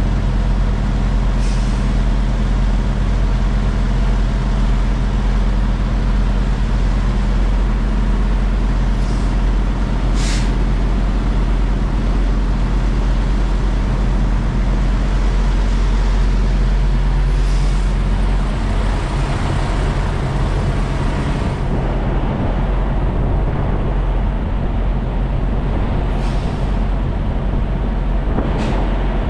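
Semi-truck diesel engines idling, a steady low drone whose note shifts about two thirds of the way through as the backing rig works. Several short air hisses from the trucks' air brakes cut in over it.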